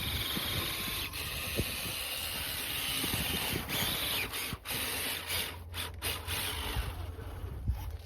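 RC truck's Hobbywing 1800 kV electric motor and geared drivetrain whining as it drives through snow, cutting out briefly a few times as the throttle is let off.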